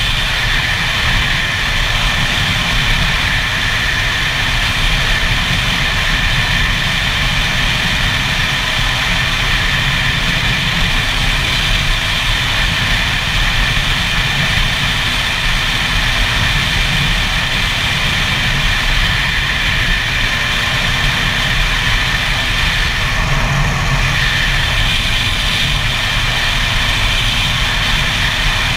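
Gas Gas EC 125's single-cylinder two-stroke engine running at a steady cruising speed on the road, with wind rumble on the helmet-mounted microphone.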